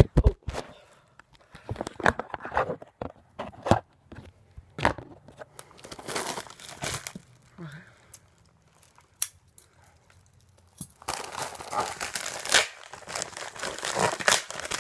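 Cardboard shipping box being opened by hand: tape and packaging tearing in short strokes. After a brief lull, steady crinkling of packing material starts about three-quarters of the way in.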